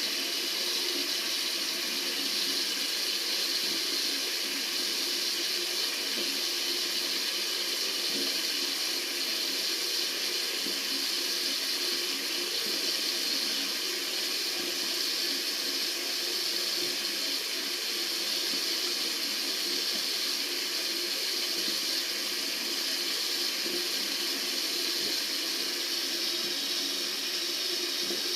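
Water running steadily from a tap, an even, unbroken rushing hiss.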